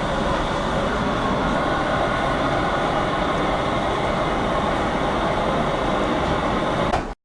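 Steady, even rumbling roar, like a large fan, blower or engine running, that cuts off abruptly near the end.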